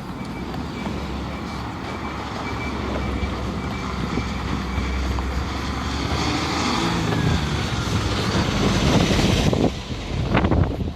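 A passing vehicle: its noise swells gradually over several seconds, then drops off sharply about nine and a half seconds in, over a low rumble.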